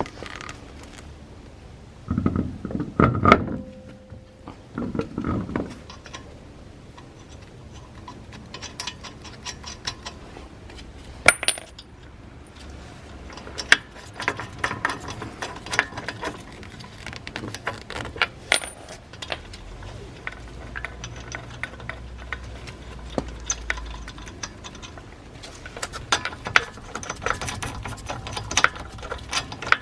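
Metal clinking and rattling of tools and lug nuts during a wheel change: scattered clicks and knocks, a few heavier knocks a couple of seconds in, and several sharp ringing metallic clinks.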